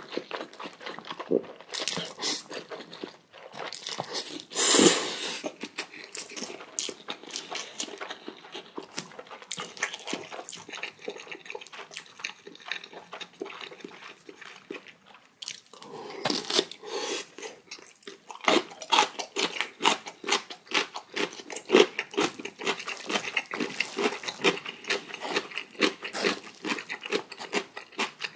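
Close-up eating sounds of a person slurping and chewing instant noodles, with crunchy bites. There are longer slurps about five seconds in and again around sixteen seconds, and between them and after them come quick, wet chewing clicks, densest in the last ten seconds.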